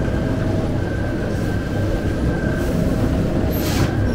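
Bakery machinery running with a steady mechanical rumble and hum, a few faint steady tones riding over it. A brief hiss cuts in about three and a half seconds in.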